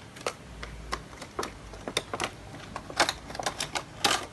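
Packaging of plastic letterboard letters being opened and handled: irregular sharp clicks and crinkles.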